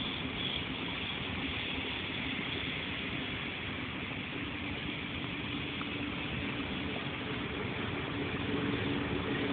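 Steady mechanical background noise with a constant low hum and no distinct events.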